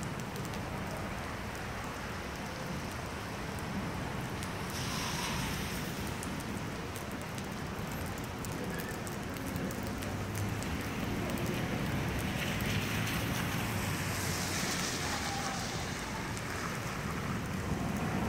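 Rain falling on wet pavement and parked cars, an even hiss that swells briefly about five seconds in and again around fifteen seconds.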